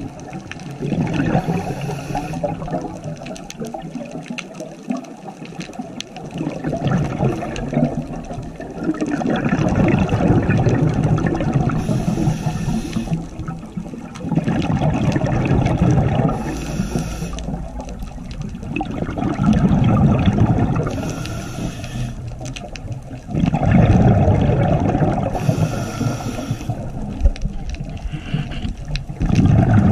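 Scuba diver breathing through a regulator underwater: exhaled bubbles rush out in repeated surges every few seconds.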